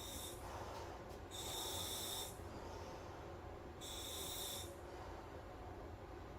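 Breathing through a SMACO full-face diving mask's regulator on surface-supplied air. Each breath is a hiss of air with a high whistle-like tone, about two and a half seconds apart: a first ending just after the start, then two more.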